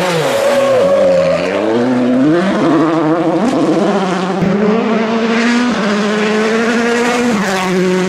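A World Rally Car's turbocharged engine is driven hard past the spectators, its revs climbing and dropping repeatedly with the gear changes. There are a couple of sharp cracks about halfway through.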